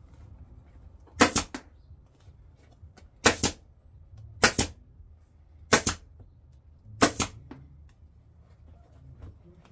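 Staple gun firing five times, one to two seconds apart, each a sharp double snap, driving staples to fasten a new upholstery cover onto a golf cart seat base.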